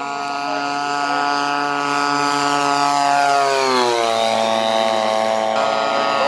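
Radio-controlled scale P-51 Mustang model flying a low pass: a steady multi-toned motor-and-propeller drone that grows louder, then drops in pitch about halfway through as the plane goes by.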